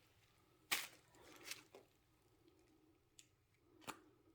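Faint clicks and taps from handling binoculars and their plastic lens covers, about four over near silence, the sharpest about a second in and another near the end.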